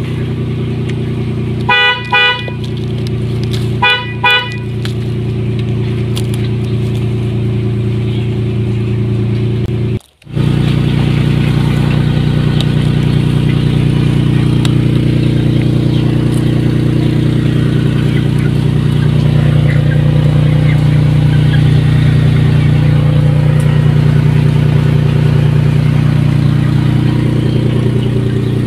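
Steady truck engine drone, with two short horn honks about two and four seconds in. The drone cuts out for a moment about ten seconds in and comes back a little louder.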